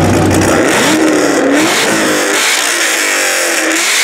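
Car engine revving, its pitch climbing and falling, with abrupt changes in the sound about half a second and two seconds in.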